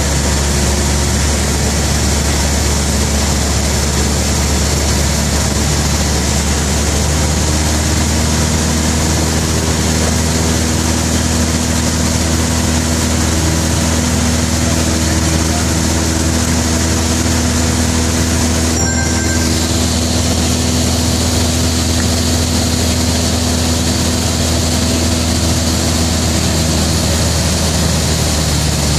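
Cessna 172's piston engine and propeller running steadily in flight, heard from inside the cockpit as a loud, even drone with a constant rushing hiss over it.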